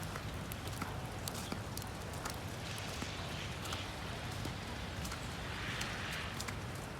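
Footsteps crunching in fresh snow, with irregular sharp crunches and two louder hissy scrunches about three and six seconds in, over a low steady hum.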